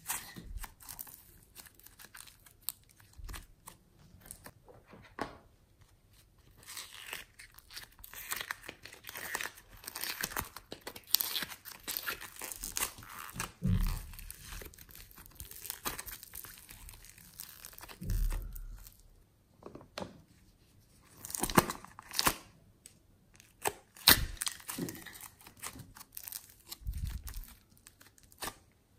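Hands squeezing, stretching and tearing apart foam slime, making many quick, irregular clicks and short rustling tears.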